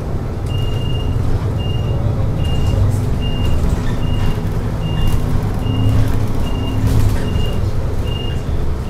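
Inside a moving city bus: the engine's steady low drone, with a short high beep repeating evenly about three times every two seconds from the cab. The beeps are typical of the bus's turn-signal beeper as it pulls in toward a stop.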